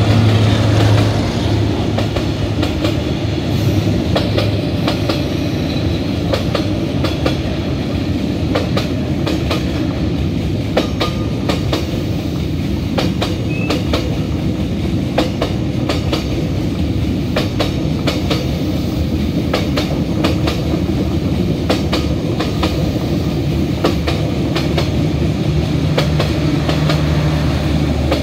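Train rolling past at close range: the cars run steadily, with the wheels clacking irregularly over the rail joints. A low steady hum fades out in the first few seconds.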